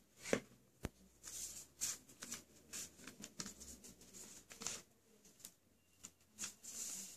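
A square sheet of origami paper rustling and crackling as it is handled, turned over and folded in half into a triangle, in irregular soft bursts. Two sharp taps come in the first second.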